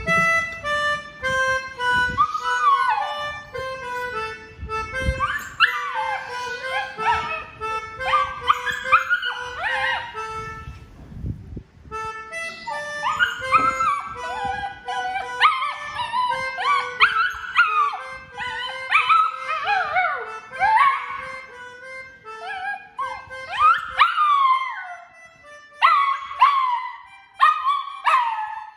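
A melodica playing a simple tune in steady held notes while a silver poodle howls along, its cries sliding up and falling away over and over. Near the end the melodica stops and the dog goes on howling alone in short falling cries.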